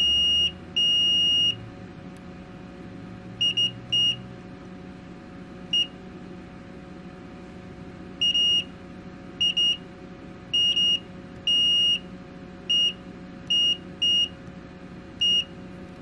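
Digital multimeter's continuity beeper sounding in about fifteen high, pure beeps at irregular intervals, some short and some held for about half a second, as the test probes touch pads on the laptop power-button board. Each beep signals that the two probed points are electrically connected.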